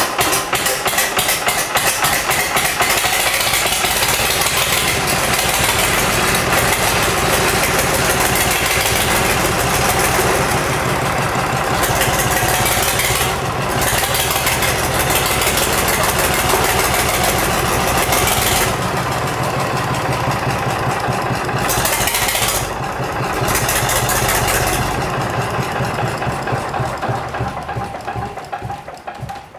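Gardner 3LW three-cylinder diesel engine running after its first start, with a fast, even firing beat. Near the end it fades and stops.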